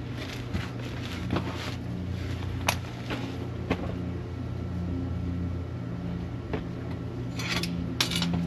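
Steel exhaust pipes being handled and fitted: scattered metal clinks and scrapes, with two short rasping bursts near the end, over a steady low hum.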